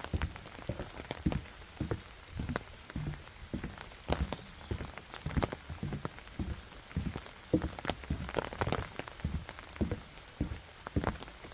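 Rain, with drops striking nearby surfaces in irregular sharp taps, several each second, over a faint steady hiss.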